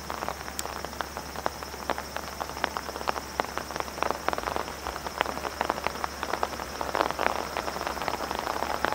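Rain falling, with large drops striking close to the microphone in many irregular sharp taps over a steady hiss.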